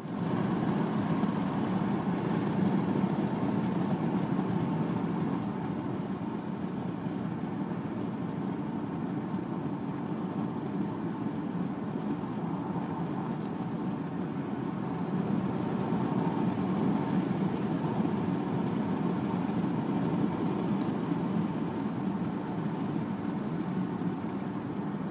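Steady low rumble of road and engine noise heard inside a moving car's cabin, easing a little midway and swelling again later.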